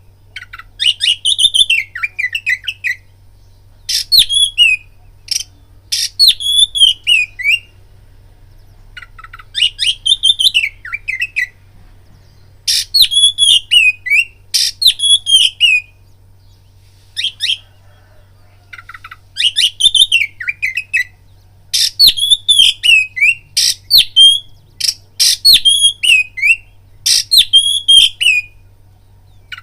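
Oriental magpie-robin singing a loud, repeated phrase: each starts with sharp clicks and ends in a whistle sliding downward, with pauses of a second or two between phrases. It is the song used as a lure to rouse a rival male to fighting mood. A faint steady low hum lies under it.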